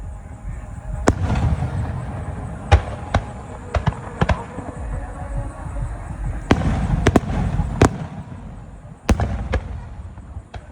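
Starmine fireworks barrage: about a dozen sharp bangs of shells bursting at uneven intervals, some in quick pairs, over a continuous low booming rumble.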